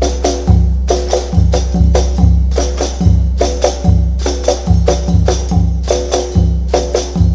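Angguk dance accompaniment played on drums: deep bass drum strokes about twice a second, interlocking pitched frame-drum beats between them, and a bright jingling like a tambourine, all in a steady driving rhythm.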